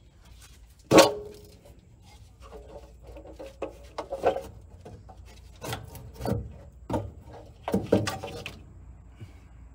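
Metal engine valve cover being knocked loose and lifted off the cylinder head. A sharp, ringing clank about a second in, then a run of scrapes and knocks as it comes free.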